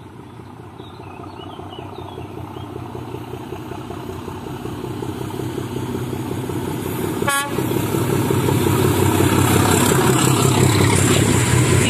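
Diesel locomotive hauling a freight train, approaching and passing beneath, its engine rumble growing steadily louder. It gives one short horn toot about seven seconds in.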